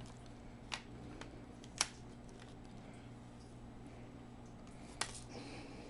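A few sharp, light clicks and taps of laptop parts being handled during reassembly, two close together early on and one near the end, over a faint steady low hum.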